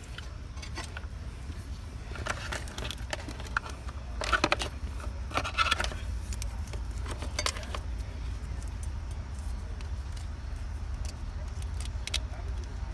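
Plastic wiring-harness connectors and loose wires rattling and clicking as they are handled, in several short bursts, over a steady low hum.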